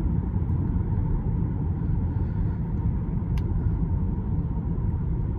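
Steady low road and tyre rumble inside the cabin of a Tesla Model 3 Performance driving on rough back roads, with one short tick about three and a half seconds in.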